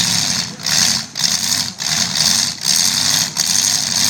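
Demolition derby car engines running and revving in repeated bursts, with a strong hiss over the engine rumble that briefly drops out between bursts.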